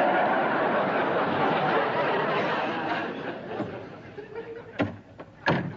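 Studio audience laughing, loud at first and dying away over about four seconds. Two sharp knocks near the end.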